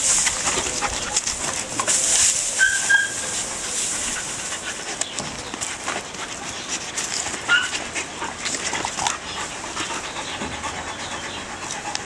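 Belgian Malinois in high ball drive jumping and scrabbling after a ball on a rope: scuffling paws and clicks, panting, and a few short high whines.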